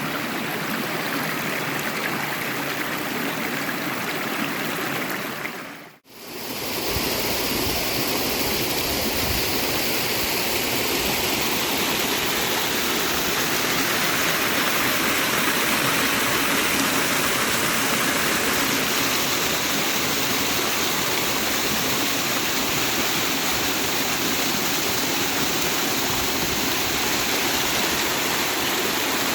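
Rushing water of a river and waterfall, a steady rush. About six seconds in it fades out for a moment and comes back fuller, with more low rumble.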